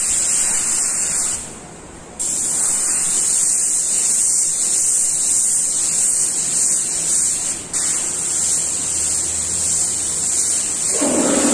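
Airbrush spraying paint with a steady high hiss, cut off for about a second shortly after the start and again very briefly later as the trigger is let go. Near the end, an air compressor motor starts up with a steady hum.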